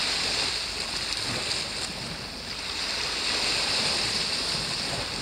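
Waves washing against a rocky shore, a steady rush with a constant high hiss over it.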